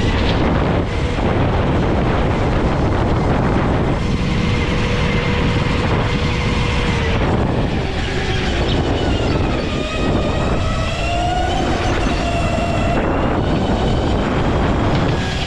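Go-kart running at speed over dense, loud rushing noise, its motor note holding steady for a few seconds and then dipping and climbing in pitch several times as it slows and speeds up.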